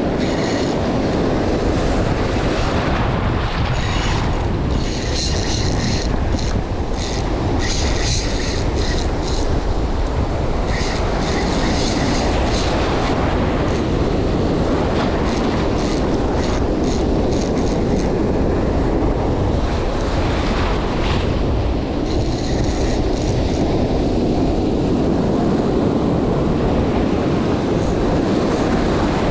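Wind buffeting the microphone over breaking surf, a steady heavy roar, with spells of a higher-pitched mechanical whirring coming and going several times.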